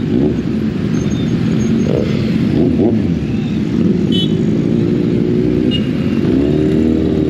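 Motorcycle engines running as a group of bikes rides slowly along, with an engine pitch rising briefly about two to three seconds in.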